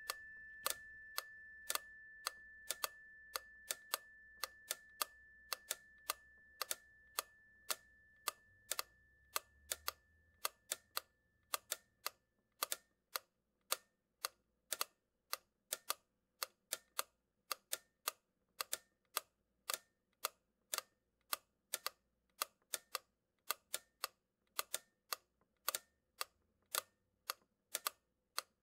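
A series of sharp, unevenly spaced clicks, about two or three a second, under a steady high tone that fades away over the first dozen seconds.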